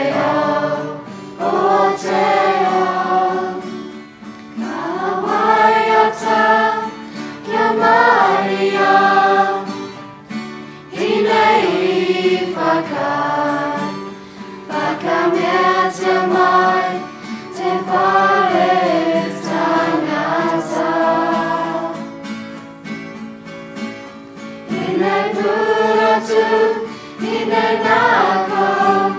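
Children's choir singing a slow song in phrases with short pauses between them, accompanied by guitar.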